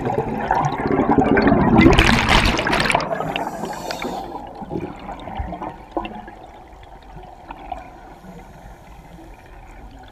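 Scuba diver's exhaled bubbles rushing out of the regulator underwater, a loud burst about two seconds in, then fading to quieter bubbling.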